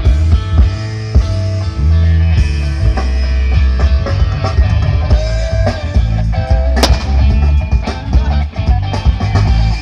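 Loud rock music played through a sound system during a bass sound check, with heavy, sustained bass under guitar and drums and a sharp hit about seven seconds in.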